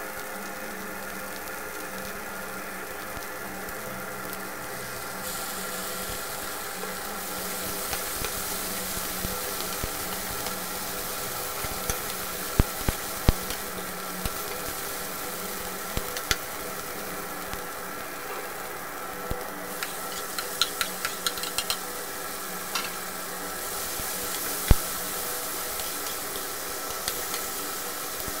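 Omena (small dried sardines) and onions sizzling in a non-stick frying pan while a metal spoon stirs them, clicking and scraping against the pan in scattered taps, with a few quick runs of clicks and one louder knock near the end. A steady faint hum runs underneath.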